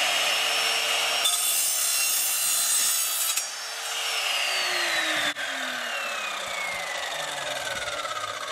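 Evolution Rage4 chop saw's motor running at full speed, then its blade cutting through mild steel plate with a harsh, high grinding for about two seconds. After the cut the motor is released and the blade winds down with a steadily falling whine, with a single click about five seconds in.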